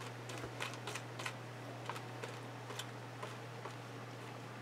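Fingers dabbing and smearing wet paint on a journal page: faint, irregular light ticks, a few a second, over a steady low hum.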